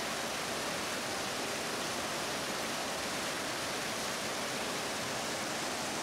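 A steady rush of a rocky mountain stream in spate, water pouring fast over and between boulders at a high monsoon flow.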